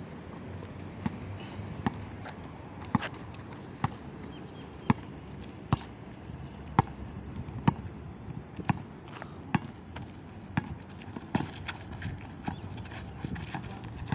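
Basketball dribbled on asphalt: sharp bounces at a steady pace of about one a second, over a low background hum.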